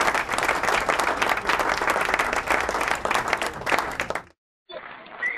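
Audience clapping in dense applause that cuts off abruptly about four seconds in, followed by a brief gap.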